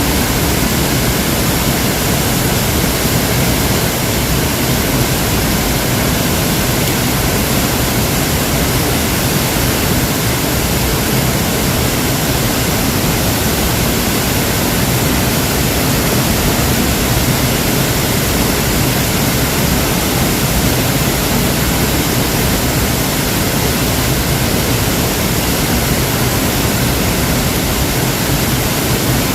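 Waterfall: a steady, loud rush of falling water that never lets up.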